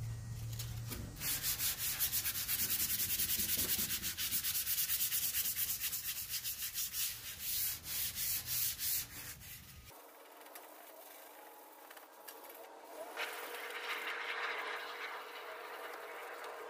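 Hand sanding of the metal toolbox: rapid back-and-forth abrasive strokes, loud and evenly repeated, stopping just before the halfway mark. It gives way to a quieter faint steady hum with hiss.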